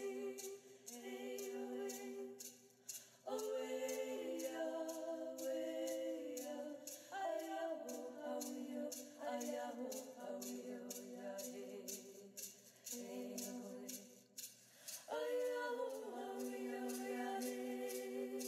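Unaccompanied group singing in long held notes that shift every second or two, with a steady beat of short clicks behind the voices.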